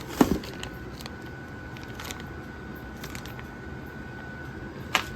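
Handling noises: a few sharp clicks and knocks, the loudest just after the start and another near the end, over a steady background hiss.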